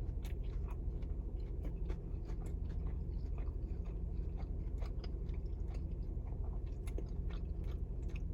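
Chewing and crunching into a crispy, buttery grilled cheese sandwich, with many small irregular crunches over a steady low hum.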